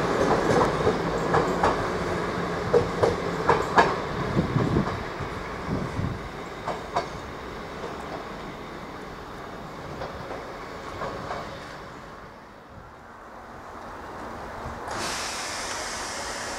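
Passenger train pulling out, its wheels clacking over the rail joints and points, the clacks coming thick at first, then thinning and fading as it moves away. Near the end the sound changes abruptly to a steadier background noise.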